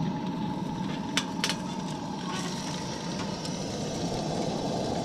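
Bacon-wrapped hamburger steaks frying, a steady rushing sizzle with a few sharp pops of spattering grease, two of them close together about a second in.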